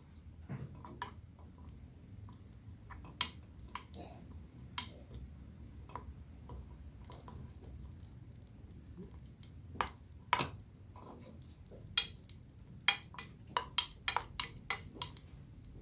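A metal utensil clinking and scraping in a small pot as camel-hump fat melts over a low gas flame. The light clicks are scattered, then come thicker from about ten seconds in.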